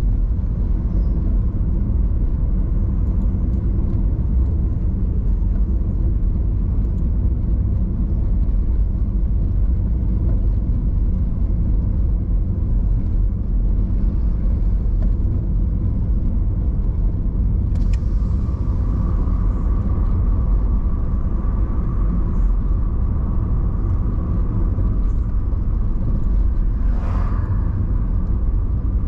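Steady low rumble of a car driving along the road: engine and tyre noise. About two-thirds of the way in a steady higher hum joins, with a brief louder sound near the end.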